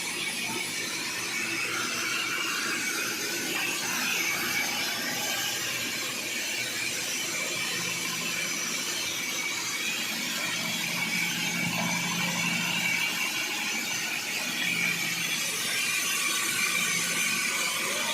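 Sawmill saw cutting through a large sheesham log: a steady, high-pitched squealing whine with no break.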